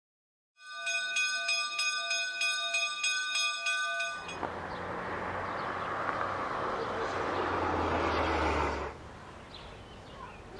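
Church bells ringing, heard as clusters of steady tones struck again and again, cutting off about four seconds in. A steady rush of outdoor noise with a low rumble follows and drops suddenly to a quieter hiss near the end.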